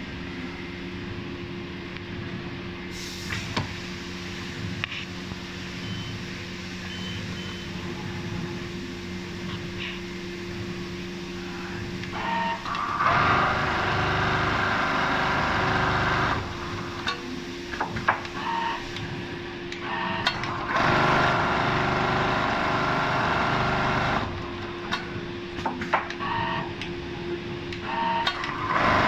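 Richpeace automatic template sewing machine: a steady machine hum at first, then stitching runs of several seconds each, about a third of the way in, past two thirds, and again at the very end, with short clicks between them.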